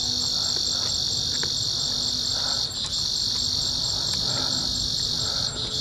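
Crickets and other insects trilling steadily at night in a continuous high-pitched chorus.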